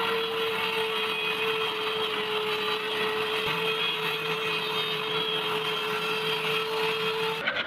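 Electric power tool motor running steadily at a constant speed, with an even whine over a hiss. It cuts off abruptly near the end.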